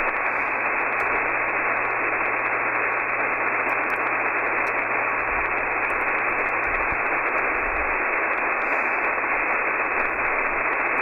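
Shortwave static from an RTL-SDR receiver tuned in upper sideband to 10.263 MHz in the 30-metre band: a steady, even hiss with the highs cut off by the sideband filter, and a faint steady tone from an unmodulated carrier. No voice or numbers come through.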